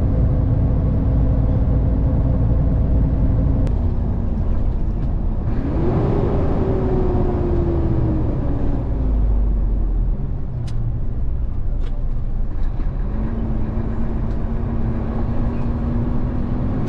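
Tractor-trailer truck's diesel engine heard from inside the cab, a steady drone over a deep rumble. Its pitch dips about four seconds in, jumps up near six seconds and slides slowly down over the next few seconds, then climbs gradually again near the end; a few faint clicks.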